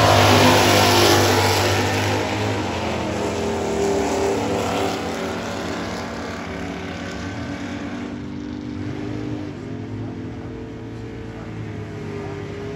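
Drag racing car engine running, loudest at the start and fading gradually, followed by steadier, quieter engine sound with a slight rise near the end.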